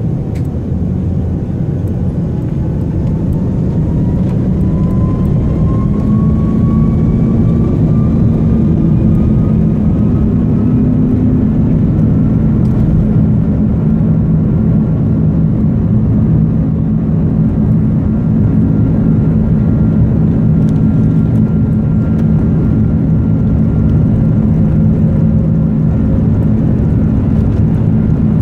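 Airbus A330 engines spooling up to takeoff thrust, heard from inside the cabin over the wing: a whine climbs in pitch over the first ten seconds or so, then holds steady over a loud, even rumble as the jet accelerates on its takeoff roll.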